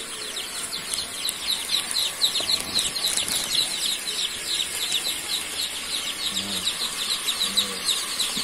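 A flock of joper chicks peeping continuously: a dense chorus of short, high, falling cheeps.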